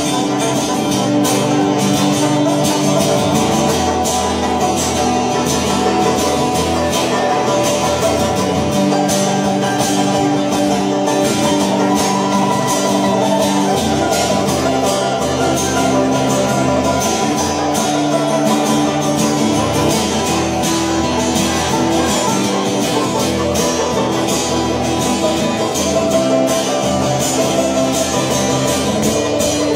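Banjo and acoustic guitar playing together in a country-bluegrass tune, a dense stream of fast picked notes.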